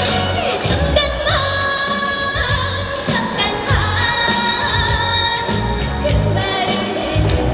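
A woman singing a Korean trot song live over backing music with a steady bass beat, holding long notes with vibrato.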